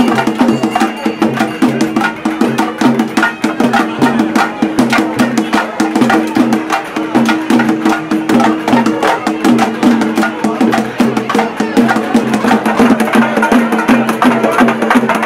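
Traditional Tamil festival music: fast, dense drumming with sharp stick strokes over steady held melody notes, running without a break.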